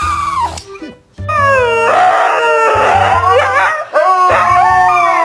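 A dog howling in long, wavering cries over music with a heavy bass beat.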